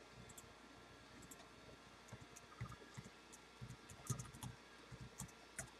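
Near silence with faint, scattered clicks and soft taps, a few at a time and thickest in the second half.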